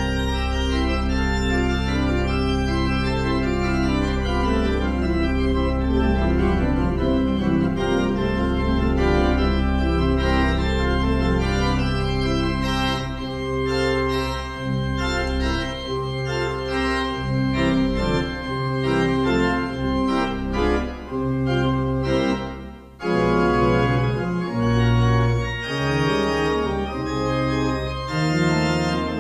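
Church pipe organ being played: full sustained chords over long-held low pedal notes. About 23 seconds in, the sound drops away for a moment, then resumes with shorter, moving notes.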